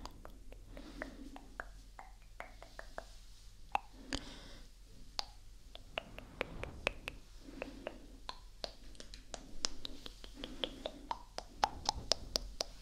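Close-up ASMR mouth sounds right at the microphone: wet tongue clicks and lip pops coming irregularly, several in quick succession at times, with soft low murmurs between them.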